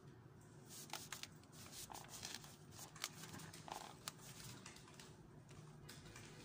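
Faint handling noise from a plastic motocross goggle being turned and flexed in the hands: soft rustles with a few sharp clicks.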